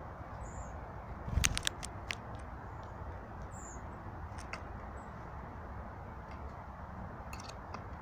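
A great tit leaving a wooden box feeder: a soft knock and a quick run of sharp clicks about a second and a half in, a few more clicks near the end, and two faint short high chirps, over a steady background hiss.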